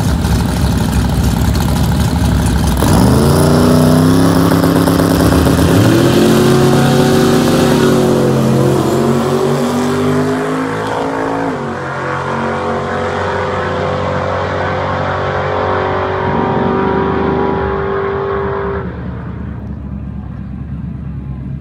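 1979 twin-turbo Fox-body Mustang launching down a drag strip without boost, with the car in the other lane running alongside. The engines sit at the line for about three seconds, then pull hard. Engine pitch climbs and drops back at each gear change, then fades away as the cars run down the track.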